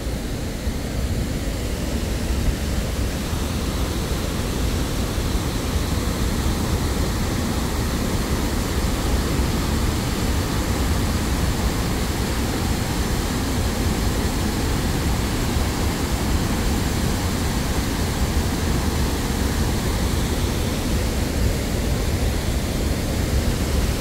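Waterfall rushing steadily: a dense, even noise, strongest in the low end.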